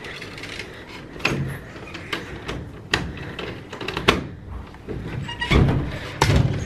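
Clicks and knocks of a door's metal handle and latch being worked, about five sharp knocks in all, the loudest two near the end as the glass-paned wooden door comes open.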